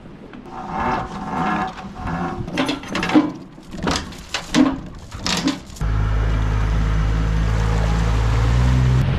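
A run of short, irregular noises, then from about six seconds in a boat's outboard motor running with a steady low hum.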